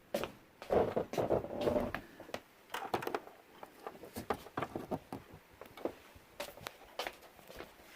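Clicks, taps and light clatter of dishes and packaging as cat food is got out and dished up, with a louder rustling, clattering stretch about a second in.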